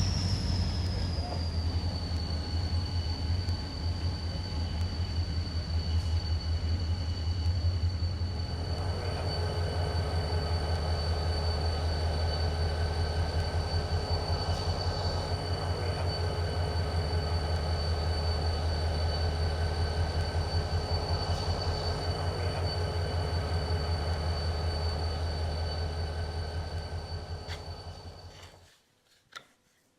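HO-scale model diesel locomotive's onboard sound playing a diesel engine's low, rapidly pulsing rumble, with a steady high whine over it. The whine falls in pitch over the first couple of seconds, the rumble grows fuller about nine seconds in, and the sound cuts off suddenly just before the end.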